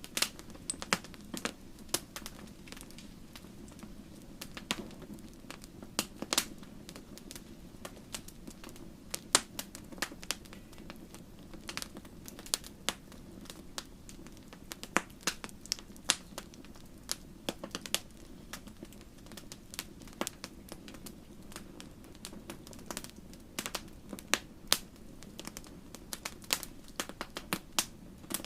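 Wood fire in a fireplace crackling, with irregular sharp pops of varying loudness over a steady low rush.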